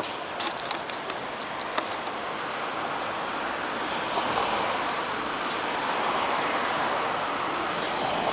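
Road traffic noise, a steady rush that swells and grows louder about halfway through, with a few sharp light clicks in the first two seconds.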